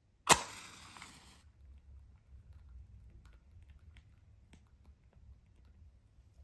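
A long wooden match struck once on the striker strip of a matchbox: a sharp scrape about a third of a second in, then the head flaring with a hiss for about a second. Faint small crackles and clicks follow as the match burns.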